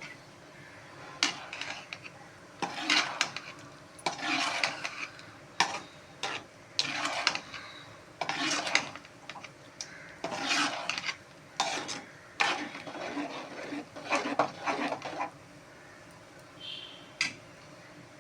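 Spoon stirring and scraping okra around a kadai: a run of irregular scraping strokes with sharp metal clicks that stops about three seconds before the end.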